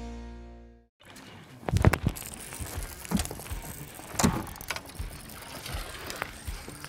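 Background music fades out about a second in. After that comes an angler fighting and netting a bass from a bass boat: sharp knocks and clatter of gear on the boat, and water splashing as the landing net goes in near the end.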